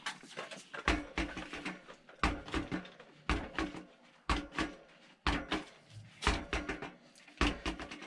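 Mountain-bike wheel with a freshly inflated folding tyre being handled against the floor: a dozen or so short thuds, many in quick pairs, about one a second.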